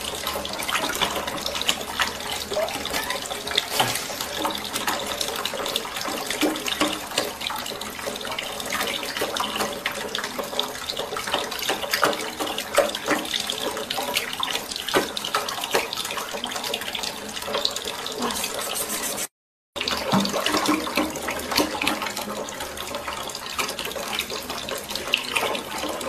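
Kitchen tap running into a sink, its stream splashing onto a plate; the sound cuts out for a moment about 19 seconds in.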